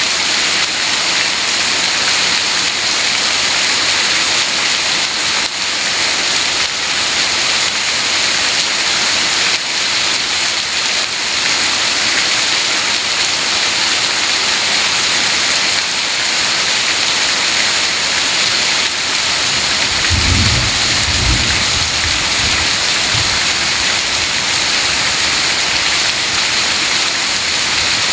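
Heavy rain falling steadily, with a brief low rumble about twenty seconds in.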